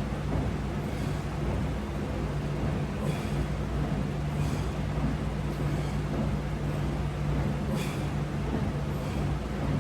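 A steady low hum, with short soft hissing swishes coming every one to three seconds.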